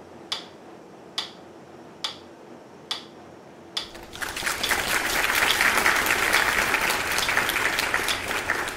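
A few sharp clicks at an even pace, a little under a second apart, then from about four seconds in a burst of applause, many hands clapping together, that holds steady to the end.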